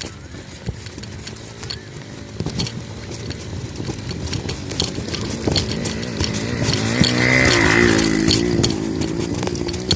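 A small engine running, its pitch rising as it grows louder to a peak about seven to eight seconds in, then holding steady.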